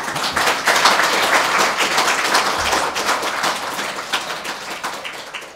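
Audience applauding. The clapping starts suddenly, is fullest in the first couple of seconds, then slowly thins out.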